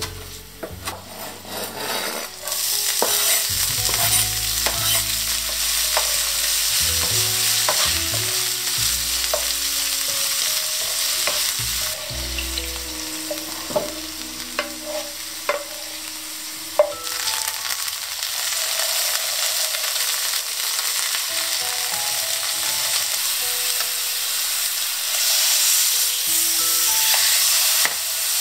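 A knife chops leafy greens on a cutting board in quick strokes. From about two seconds in, oil sizzles steadily in a non-stick frying pan as the chopped greens are stirred with a spatula, with scrapes and knocks against the pan. Later the steady sizzle comes from thick daikon radish rounds frying.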